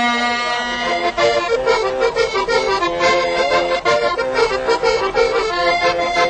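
Lively folk dance tune on accordion: held chords give way about a second in to brisk, rhythmic playing.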